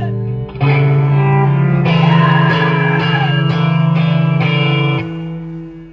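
Live electric guitars ringing out held chords, with little or no drumming. About half a second in the sound briefly drops, then a new chord is struck and rings. It fades away over the last second.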